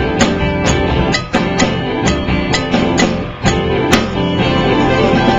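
Live band playing guitar-led instrumental music, with sharp percussive strikes two to three times a second over held chords. The strikes stop about four seconds in, leaving the chords ringing.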